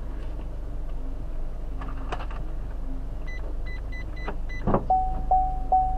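Card payment machine beeping: a quick run of five short high key beeps as the PIN is typed, a thump, then four lower beeps, the last one longer. The low hum of the car's idling engine runs underneath.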